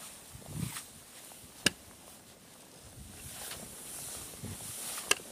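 Footsteps crunching in snow and a Clam Fish Trap sled shelter hissing as it is dragged over the snow, with two sharp clicks, one a little under two seconds in and one near the end.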